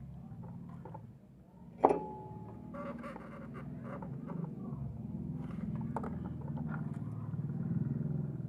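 A sharp metallic clink about two seconds in that rings briefly, and a few lighter clicks later, over a steady low background hum: small parts and tools being handled during wiring.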